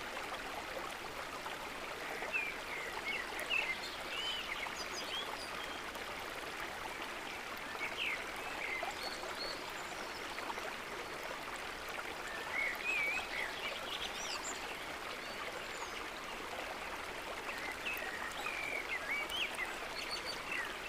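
Birds chirping in short, scattered twittering phrases over the steady rush of flowing stream water.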